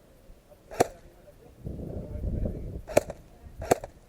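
Airsoft gun firing three single shots, each a sharp snap: one about a second in, then two close together near the end. A low rumbling noise runs between the first and second shots.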